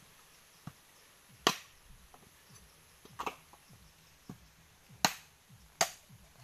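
Bolo knife striking husked coconuts to split them for copra: about six sharp, separate whacks at irregular intervals, the loudest about a second and a half in and about five seconds in.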